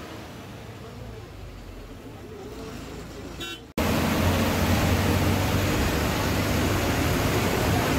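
KSRTC bus running on the road, a steady engine and road noise. It is low and quiet at first, then after a sudden cut about four seconds in it becomes loud and full.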